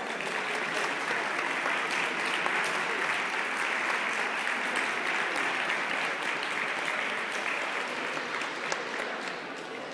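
Audience applauding, many hands clapping steadily, easing off a little near the end.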